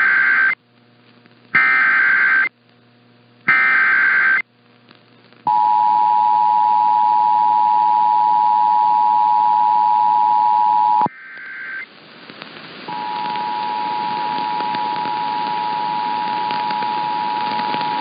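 Emergency Alert System tones for a severe thunderstorm warning: three short, buzzy bursts of SAME header data about two seconds apart, then the steady two-tone EAS attention signal for about five seconds, which cuts off sharply. A brief data chirp follows, and a couple of seconds later a second, somewhat quieter two-tone attention signal sounds over a hiss.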